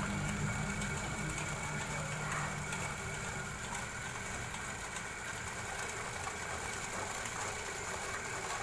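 Machine motor running steadily at a low level.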